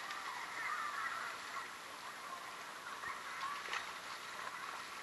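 Shallow creek water flowing and gurgling close to the camera, with a brief sharper splash about three-quarters of the way through.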